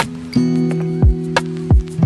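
Background music: held chords over a beat of low, pitch-dropping kick-drum hits and sharper percussive hits.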